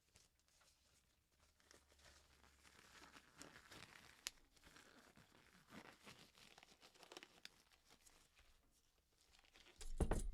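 Faint rustling and crinkling of gloves being pulled onto the hands, with a few small clicks and a louder thump near the end.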